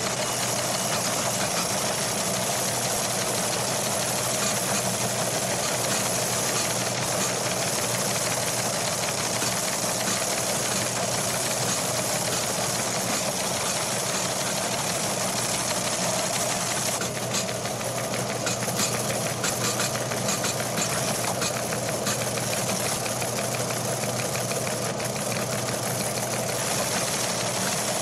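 Office ambience of teletype machines clattering steadily, a dense, rapid mechanical chatter of printing strikes. Individual strikes stand out more sharply for about ten seconds in the second half.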